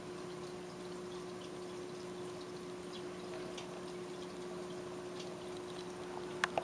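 Aquarium water trickling and bubbling over a steady low electric hum from the tank's equipment, with two sharp clicks near the end.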